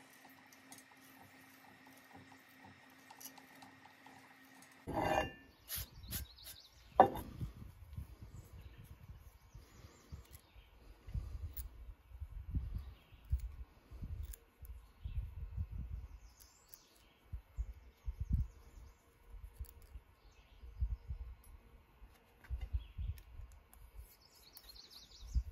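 Steel tooling parts clinking and knocking as they are handled and fitted together by hand, with two sharp metal knocks about five and seven seconds in, then scattered lighter clinks and dull bumps. A faint steady hum runs under the first few seconds.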